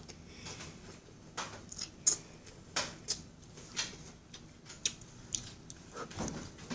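Irregular small clicks and crunches of a child eating edamame straight from the pile with his mouth, biting and chewing the beans and pods.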